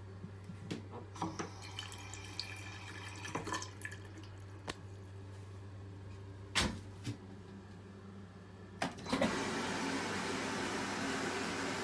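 Water starting to run steadily from a Panasonic Alauno toilet's hand-wash faucet about nine seconds in, after a few scattered clicks and knocks over a steady low hum.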